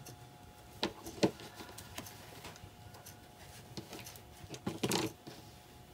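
Scattered light knocks and clicks of fabric, pins and scissors being handled on a cutting mat, the loudest around five seconds in, over a faint steady hum.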